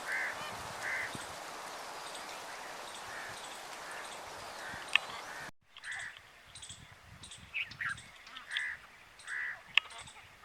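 Birds calling: short, evenly repeated calls with other chirps and thin whistles among them. The steady background hiss drops away suddenly a little over halfway through.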